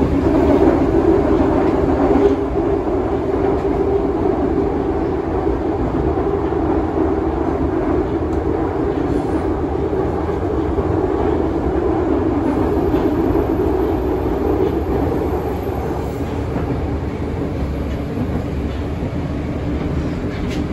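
Moscow Metro train running, a steady rumble of wheels on track that eases slightly near the end.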